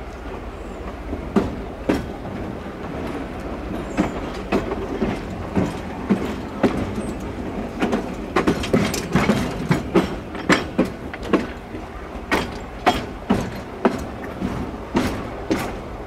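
Train wheels clacking over rail joints and through switches on narrow-gauge track: sharp, irregular clicks that come thicker in the second half, over the steady rumble of the moving train.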